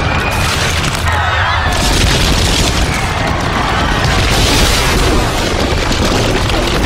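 Loud, sustained rumbling boom noise with a heavy deep low end, with music underneath.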